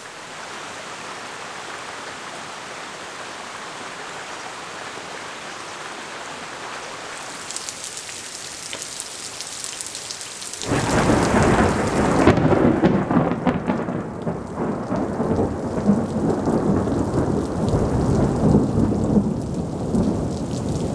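A steady rush of flowing stream water. About halfway through, heavy rain with rumbling thunder cuts in suddenly and stays loud.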